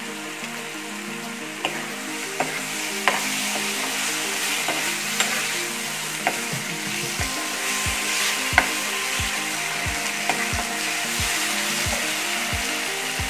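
Onion, garlic and ginger masala sizzling in oil in a frying pan while a steel spoon stirs it. A few sharp clicks of the spoon against the pan stand out, the loudest about three seconds in and again about eight and a half seconds in.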